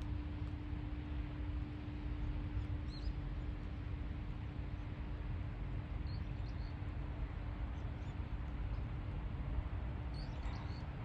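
Outdoor ambience: a steady low rumble with a faint steady hum, and a few short high bird chirps, about three seconds in, about six seconds in, and again near the end.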